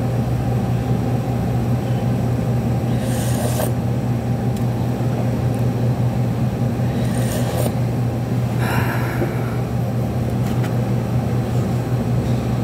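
Steady low machine hum, with three short noises of eating with a plastic spoon at about three, seven and nine seconds in.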